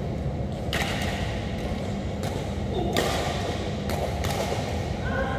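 Badminton rackets striking a shuttlecock during a doubles rally: a few sharp hits, the loudest about one and three seconds in, over a steady low hum, with a brief squeak near the end.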